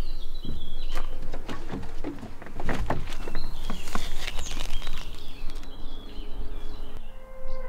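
Birds chirping, with a run of sharp clicks and knocks from gear being handled: an inflatable paddle board, its valve and a van's door. Steady music notes come in near the end.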